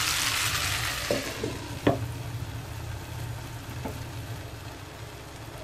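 Tamarind rice sizzling in a nonstick pan. About two seconds in, a glass lid is set on with a sharp clink, a few lighter clicks around it, and the sizzle grows quieter and muffled under the lid.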